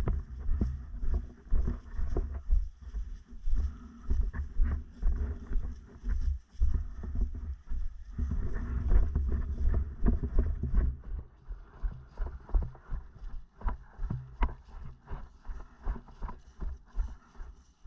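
Footsteps and rustling of clothing and gear close to the microphone, in an uneven rhythm of roughly two knocks a second over a heavy low rumble of handling noise.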